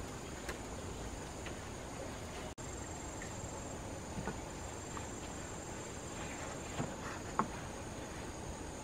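Steady high-pitched chirring of forest insects, with a few light knocks from bamboo poles being handled about four and seven seconds in.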